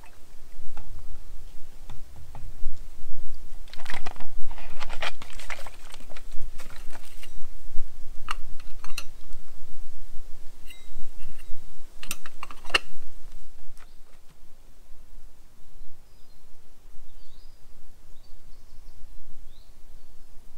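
Rustling and crinkling of plastic food packaging with clicks and clinks of metal camp cookware, in bursts through the first two-thirds. After that it goes quieter, with a few faint bird chirps near the end.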